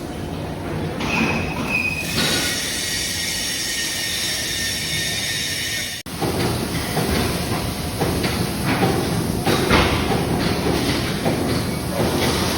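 Baler conveyor machinery running with a metallic squeal, a high squealing whine for about four seconds, then cutting off suddenly into irregular clattering and knocking.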